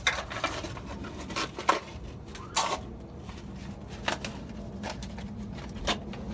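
Scattered light knocks and clicks, about seven over a few seconds, from a replacement water pump and its bolts being handled and set against the engine.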